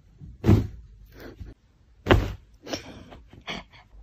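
Two dull thumps about a second and a half apart, with fainter knocks between them.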